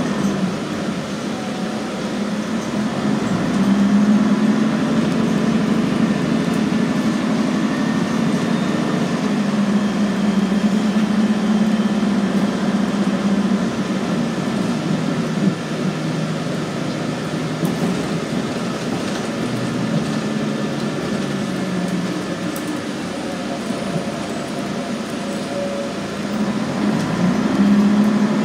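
Scania N113CRB bus's rear-mounted diesel engine running under way, heard from inside the passenger cabin with road noise. Its low drone swells a few times as the bus accelerates, about three seconds in, around ten seconds in and near the end.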